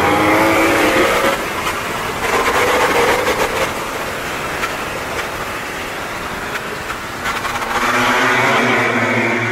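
MotoGP racing motorcycles accelerating past at high revs, their engine note rising in pitch, loud.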